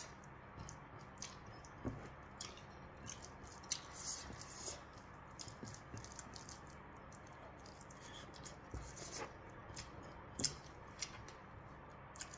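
Close-up eating sounds: chewing, with fingers squishing and mixing food in a ceramic bowl, giving a scatter of small wet clicks.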